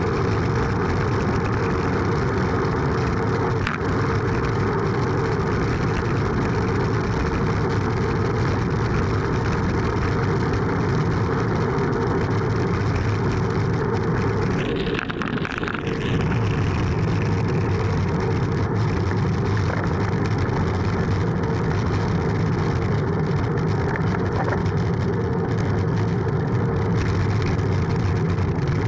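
Steady wind rush and road rumble on the microphone of a loosely mounted action camera on a bicycle coasting down a mountain road. Around halfway the low rumble drops away for a second or so while a brief higher hiss rises.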